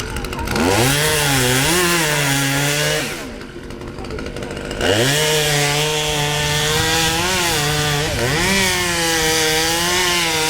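Husqvarna T540 XP top-handle chainsaw's two-stroke engine revved to high speed in two long bursts. It drops back to a low idle for a couple of seconds between them, and its pitch wavers slightly while held high.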